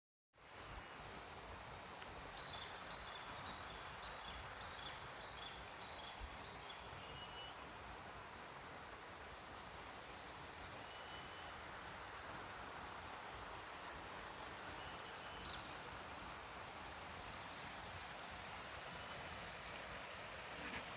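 Steady rushing noise of a waterfall, with a continuous high-pitched insect drone over it and a few short high chirps.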